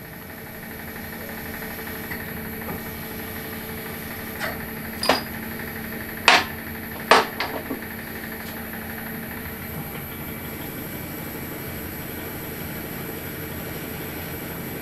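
Milling machine spindle running steadily with a faint high whine while a twist drill bores into an aluminium block. A few sharp clicks and knocks come in the middle, the two loudest about a second apart.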